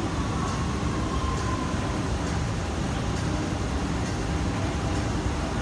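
MTR South Island Line S-Train approaching unseen through the tunnel, a steady low rumble heard from behind the platform screen doors, with a faint tone that falls slightly in the first second and a half.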